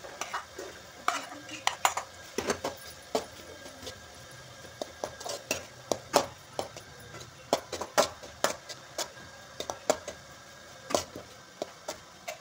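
A spoon clinking and scraping against a steel pan as cooked rice is stirred and mixed in, in irregular sharp clicks several times a second.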